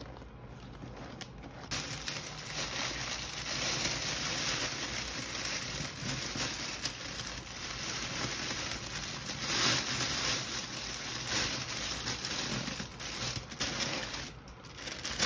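Clear cellophane wrap crinkling and rustling as it is pulled up and folded around a gift basket, starting about two seconds in and going on in irregular surges.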